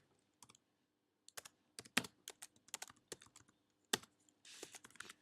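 Typing on a computer keyboard: an uneven run of key clicks as a file name is entered, with a short pause near the start.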